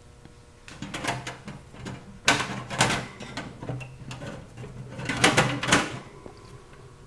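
Metal wire grill grate clinking and rattling against a folding stainless steel fire pit as it is lowered and set in place. The clatter comes in three short bursts: about a second in, around two and a half seconds, and around five seconds.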